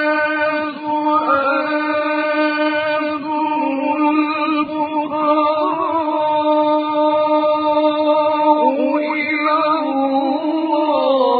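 A man's voice reciting the Quran in slow, melodic tajweed chant. It holds long notes on a steady pitch, with wavering ornamental turns.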